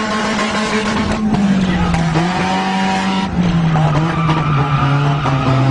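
Car engine revving hard, its pitch rising and falling, with tyres squealing as the car is driven in fast stunt slides.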